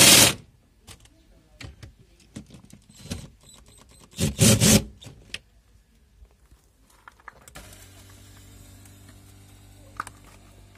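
Cordless drill-driver on a long socket extension running in two short bursts, at the start and again about four seconds later, driving a car seat's floor mounting bolts, with small clicks and knocks of the socket in between. About seven seconds in, a steady low hum starts.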